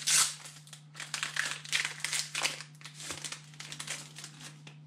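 Foil wrapper of a Pokémon TCG booster pack crinkling in irregular bursts as it is handled and opened, loudest right at the start. A faint low steady hum runs underneath.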